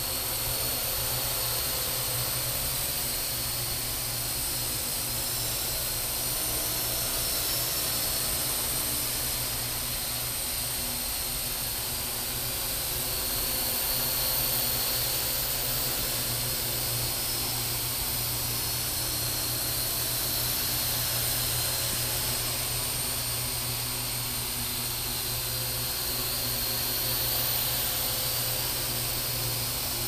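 Parrot AR.Drone 2.0 quadrotors flying: their electric motors and propellers give a steady high-pitched whir, which swells slightly in loudness now and then.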